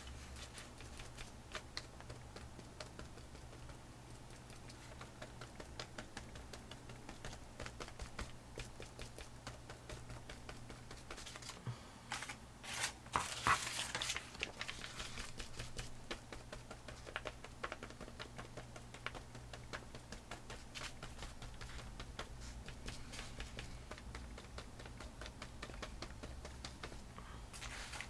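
Quick, light tapping of a small natural sea sponge dabbing paint onto old book-page paper, with a louder rustle of paper being handled about halfway through.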